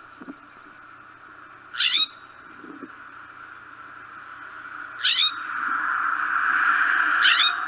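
California scrub-jay giving three short, harsh calls, about three seconds apart, over a steady background noise that grows louder near the end.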